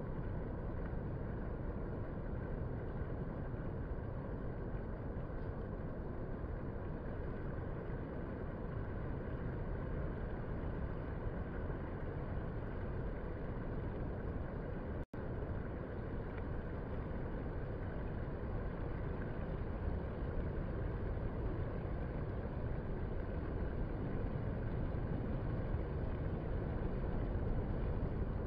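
Steady low roar of distant surf breaking along the shore at low tide, cutting out for an instant about halfway through.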